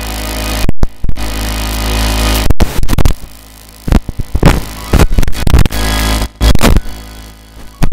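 Music played loud and distorted, with irregular heavy thumps and a few brief dropouts in the sound.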